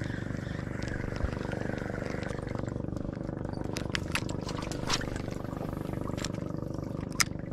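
Boat engine running at a steady speed, with a few sharp clicks, the loudest near the end.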